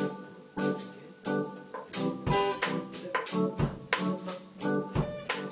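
Background music in a jazzy style: plucked guitar chords over a drum kit, at a steady beat.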